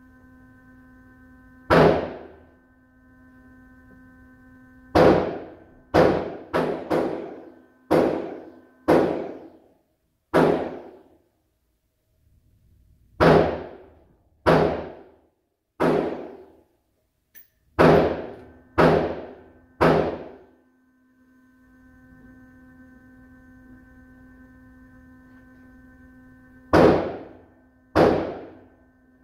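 Gunshots at an indoor shooting range: about sixteen irregularly spaced shots, some in quick runs of two or three, each trailing off in a short echoing decay. A steady hum of several tones sits underneath between the shots.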